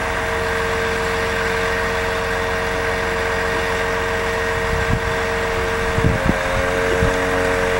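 Concrete truck's engine running at a steady speed, a constant droning tone, with a few low thumps in the second half.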